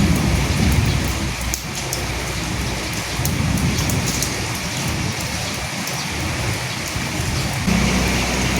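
Steady rain hissing, with many single drops ticking sharply on top and low rumbles of thunder swelling in the first second and again around the middle. A steady low hum sets in near the end.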